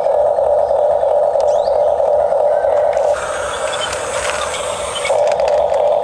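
Electric drive motors and gearboxes of a Huina 1569 RC toy bulldozer running with a steady mechanical whir as it drives and turns. About three seconds in, the sound changes for about two seconds to a harsher, rattly grinding, then the steady whir returns.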